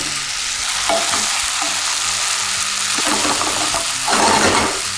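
Tofu omelette sizzling steadily in a hot non-stick frying pan over a gas flame. A wooden spatula scrapes and pushes the mixture about in a few short bursts, the longest a little after four seconds in.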